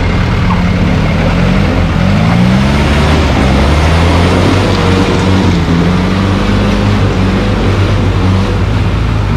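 Off-road 4x4 engines running and being revved, rising and falling in pitch several times, as the trucks drive through a river, with water splashing and rushing around the wheels.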